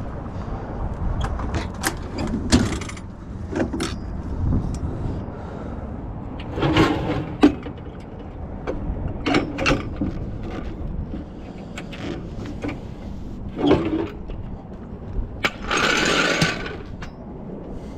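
Scattered metal clanks and knocks of tools and a car jack being handled, with a longer scraping rattle near the end, over a steady low rumble.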